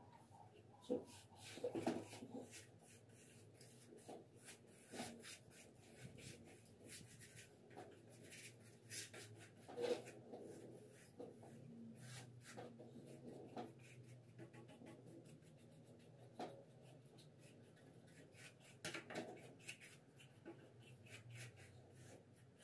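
Faint, irregular scratchy rubbing strokes of hand-sanding a painted stair handrail, the prep before repainting it.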